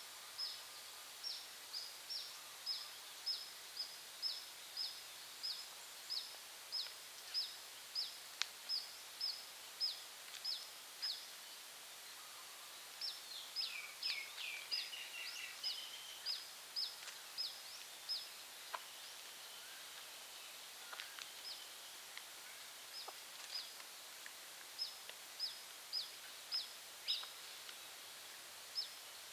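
A bird calling with a long series of short high notes, about two a second, pausing now and then, with a brief burst of twittering in the middle; a steady faint outdoor hiss underneath.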